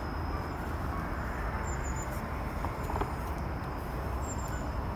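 Steady outdoor background noise with a low rumble, and twice a faint, short, high chirp from small birds.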